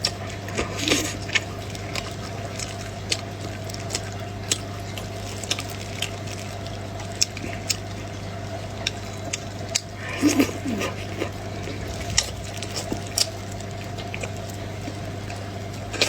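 Close-miked eating of roast chicken: irregular wet clicks and smacks of mouth and teeth chewing, with denser bursts of biting about a second in and again around ten seconds. A steady low hum runs underneath.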